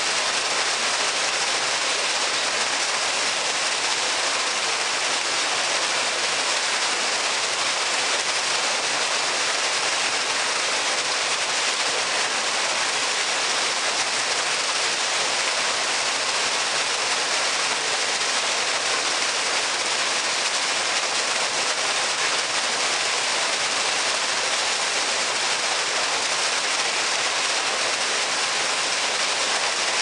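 A single stream of water falling from a stone spout and splashing steadily into a shallow stone pool, a constant hiss of splashing water.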